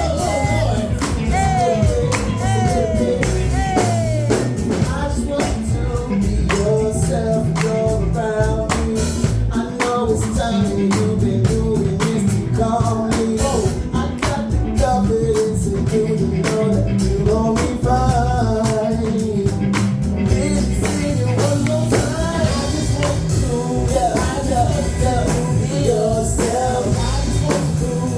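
Live band music with singing: a wavering melodic vocal line over bass and a steady drum beat.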